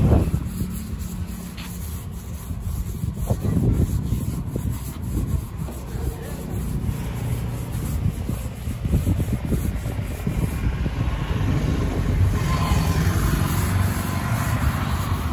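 Steady low rumble, with a brush rubbing and scraping along the inside wall of a steel ring mould as it is coated with black oil; the scraping grows louder in the last few seconds.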